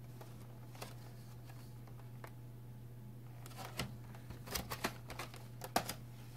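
Plastic figure parts and packaging being handled: scattered light clicks and crinkles that come thicker and louder in the second half, over a steady low hum.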